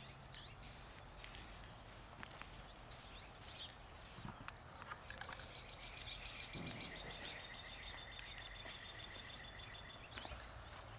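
Faint outdoor ambience with a rapid, high chirping trill from a bird or insect that starts a few seconds in and runs for about five seconds, and several short, high hissing bursts.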